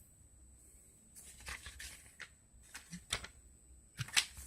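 Paper warranty card and leaflets being handled: a few short, scattered rustles and light taps, the sharpest about three and four seconds in.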